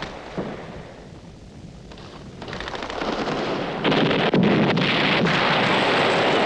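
War-film battle noise: a low rumble that swells from about two and a half seconds in into loud, continuous blast-like noise of explosions.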